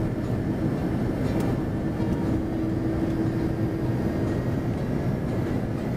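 Steady cabin noise inside an Airbus A330-300 on approach: a low rumble from the wing engine and the airflow. A steady humming tone swells in the middle, then fades.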